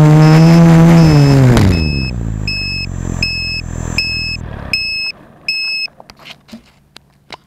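F450 quadcopter's four A2212 1000Kv brushless motors with 10-inch propellers humming steadily, then spinning down with a falling pitch from about a second in as the drone settles on the ground and the motors stop. After that comes a regular series of short electronic beeps, about one every three-quarters of a second, which stop about six seconds in, followed by a few faint clicks.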